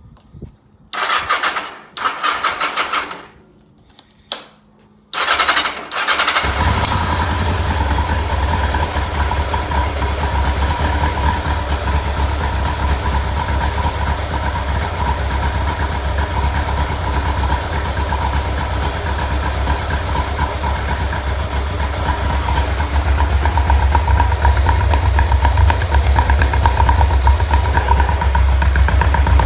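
An engine is cranked in a few short bursts and catches about six seconds in, then settles into a continuous idle with a heavy low rumble. The idle is rough, as the owner calls it.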